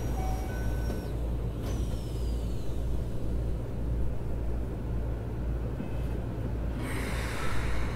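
Keikyu New 1000 series (1800 subseries) train standing at a platform, heard from inside the car: a steady low hum from the stopped train, two faint falling whistle tones in the first few seconds, and a short hiss of air about seven seconds in.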